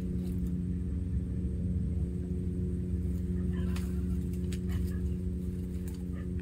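A steady low droning hum with even overtones, from an unseen source. A few faint crackles come in the middle, as dry reed stems are grasped and pulled.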